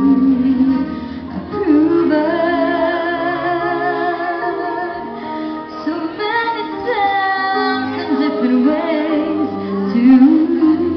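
Live band music with a woman singing lead into a microphone, amplified through a PA. She holds wavering notes with vibrato, and one note slides down about seven seconds in, over a backing of drums, electric guitar and keyboard.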